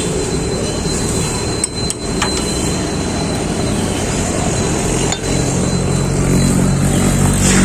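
A few sharp metal clinks of a steel combination spanner against a bike's wheel nut, over steady vehicle noise; a low engine hum grows louder in the last couple of seconds.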